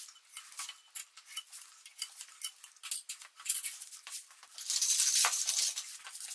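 Putty knife scraping wet wood-glue squeeze-out from the inside corners of a clamped hexagonal wooden tube: a string of small scrapes, clicks and taps, with a louder stretch of noise for about a second around five seconds in.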